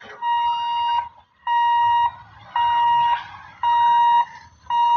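Railway level-crossing warning alarm beeping: a steady high electronic tone repeating about once a second, five beeps in a row, sounding as the crossing gate is about to close for an approaching train.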